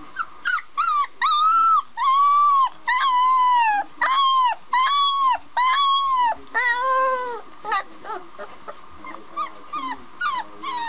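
A very young puppy calling out in a string of about seven high, drawn-out yelps, each rising and falling in pitch. From about eight seconds in, the calls turn into shorter, fainter yips and whimpers.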